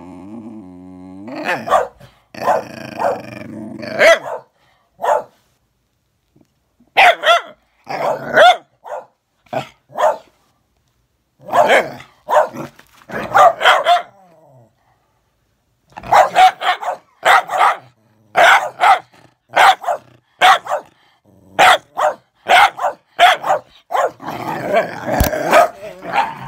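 A Bedlington whippet cross and a Patterdale terrier barking and growling at each other: a low growl at the start, then sharp barks in runs of several with short pauses between the runs.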